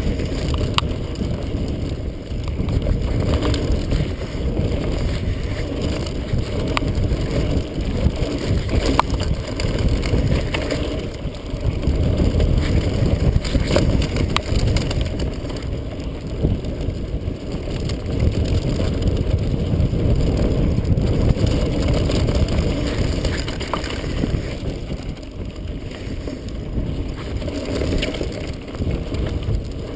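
Mountain bike descending rough dirt singletrack: steady wind buffeting on the action camera's microphone and a low rumble, with scattered sharp clicks and rattles from the bike over bumps.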